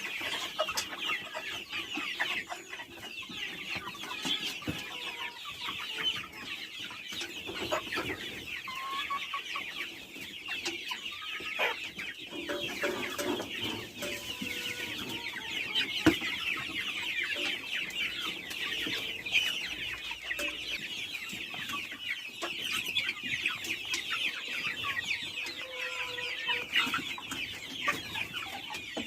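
A flock of chickens clucking and calling continuously, many short high calls overlapping into a constant chorus.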